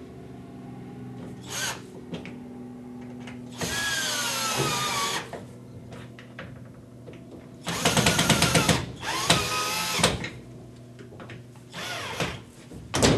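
Cordless battery drill driving screws through metal U-brackets into wall anchors, in three short bursts. The motor pitch falls in the first burst as the screw draws tight.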